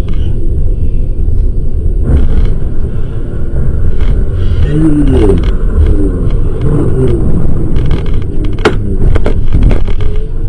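Loud, steady rumble of road and engine noise inside a car driving on a highway, with short wavering tones rising and falling a few times from about four seconds in.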